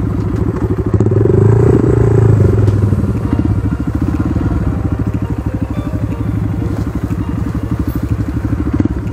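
Four-stroke single-cylinder trail motorcycle engine running under way. It pulls harder for a second or two about a second in, then settles to a steadier, slightly lower drone.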